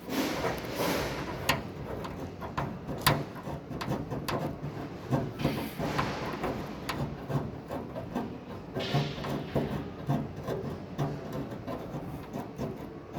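Hand tools working on metal bodywork: irregular clicks and light knocks over a rubbing, rasping noise, with a couple of sharper knocks early on and a rougher scraping stretch about nine seconds in.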